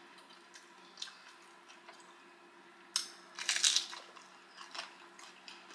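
Biting into and crunching a crispy fried egg roll: a sharp bite about three seconds in, followed by a cluster of crunches, with a few fainter crunches around it.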